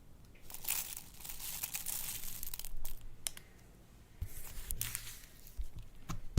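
Crinkling and crackling from slime and its mix-ins being worked by hand, in two irregular spells with a few sharp clicks between them.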